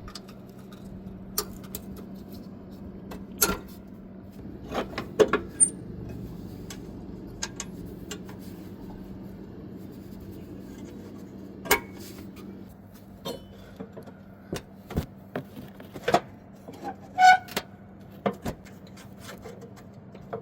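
Scattered metallic clanks, clicks and knocks of riding-mower deck parts being worked back into place by hand, with one louder clank that rings briefly near the end.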